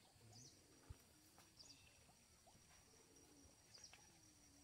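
Near silence: faint outdoor ambience with a bird giving a short, high, falling call every second or two over a thin, steady high insect hum.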